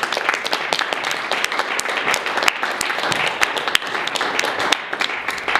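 Audience applauding: many hands clapping in a dense, irregular patter that starts to thin out near the end.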